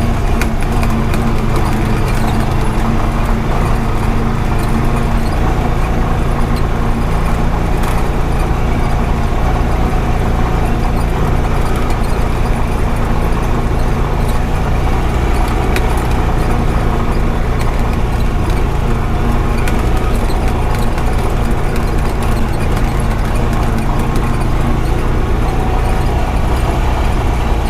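Honda Pioneer 520 side-by-side's single-cylinder engine running steadily while driving, with scattered clicks and rattles over the rough road.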